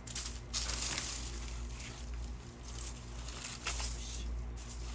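Hands digging and rummaging through dry potting soil in a potato grow bag: a continuous crunching rustle with several louder surges.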